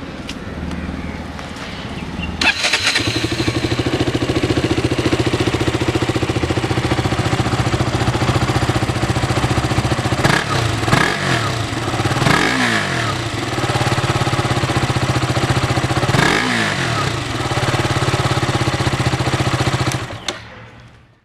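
2012 KTM Duke 200's single-cylinder engine with its stock exhaust firing up about two and a half seconds in, then idling steadily. The throttle is blipped three times in the middle, and the engine stops near the end.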